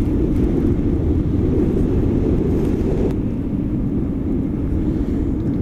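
Wind rushing over the camera microphone while riding an electric hub-motor sportbike: a dense, fluttering low rumble with no engine note.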